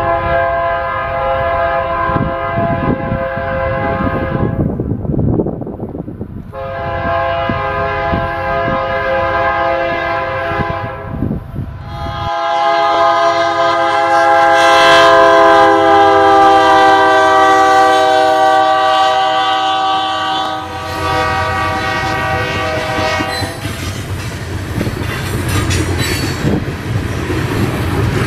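Multi-note air horn of a GE diesel freight locomotive blowing three long blasts over its engine rumble, the third and longest dropping slightly in pitch near its end. Then the train's wheels rumble and click over the rail joints as the freight cars roll past.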